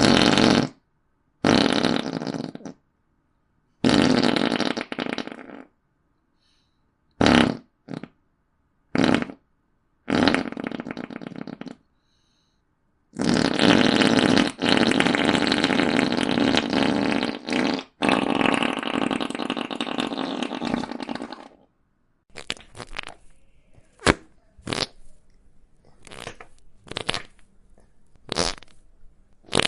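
Fart sound effects played one after another with short silent gaps: several farts lasting a second or two, a few brief ones, and one long drawn-out fart of about five seconds in the middle. Near the end comes a quick string of short sharp pops.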